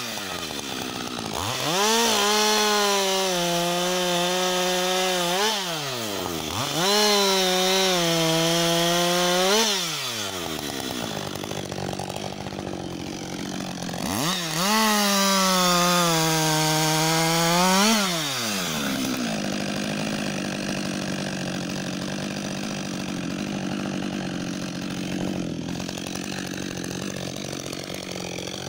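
Husqvarna 562 XP two-stroke chainsaw run at full throttle in three long bursts, cutting through a felled conifer log, each burst revving up quickly and dropping away at the end. About two-thirds through it settles to a steady idle.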